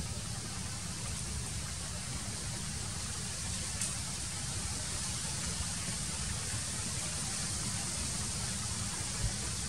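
Steady outdoor background noise: a low, unsteady rumble and a high hiss, with no distinct animal calls.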